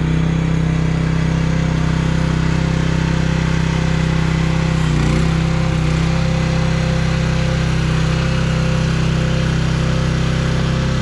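Chinese mini excavator's engine running steadily, with a brief waver in pitch about halfway through.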